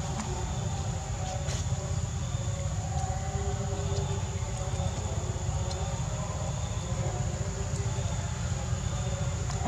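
Steady outdoor background rumble, strongest in the low range, with a constant thin high-pitched whine above it and a few faint ticks; no monkey calls stand out.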